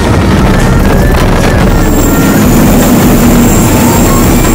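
Offshore catamaran powerboat running at high speed: a loud, steady engine drone mixed with the rush of spray and heavy wind buffeting on the microphone.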